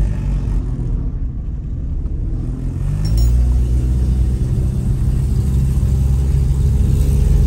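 Car engine and road rumble heard from inside the cabin while driving up a steep street. About three seconds in, the engine note rises and gets louder, then holds steady as the car climbs.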